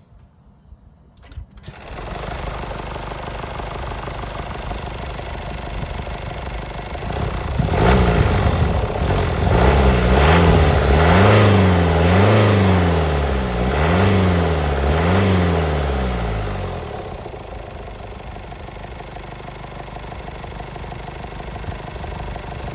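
Mercedes C200d's OM654 2.0-litre four-cylinder diesel starting about two seconds in after a couple of clicks, then idling. It is revved up and down several times in a row from about eight to sixteen seconds in, then settles back to a steady idle.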